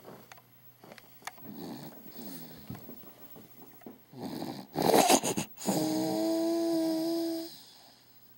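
A sleeping baby snoring through her nose: a few soft breaths, then a loud snort about five seconds in, followed by a steady pitched whistling tone held for nearly two seconds.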